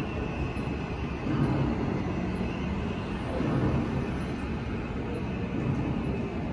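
Soundtrack of an animated video installation: a dense low noise, with a deeper tone swelling about every two seconds.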